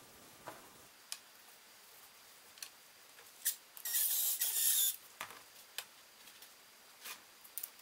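Cordless drill/driver running for about a second as it tightens a bolt in the plywood arm. Around it, scattered light clicks and knocks from the plywood arm sections being handled.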